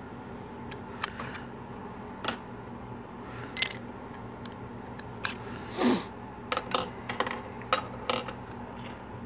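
Light metallic clicks and clinks of a 4L60E transmission sun gear shell and loose bushings being handled, scattered and irregular, with a quick run of clinks about seven to eight seconds in. About six seconds in, a short sound slides down in pitch.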